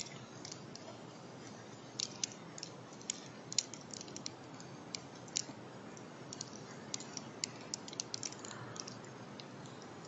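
Scattered short, sharp clicks and ticks, a few a second and uneven, over a steady hiss.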